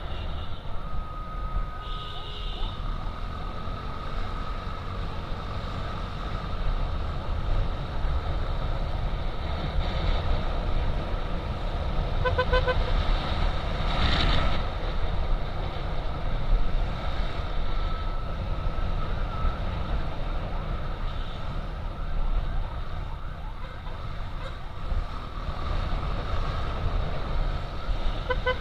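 Motorcycle riding through town traffic: steady wind buffeting and engine rumble on the rider's camera, with a short horn beep about twelve seconds in.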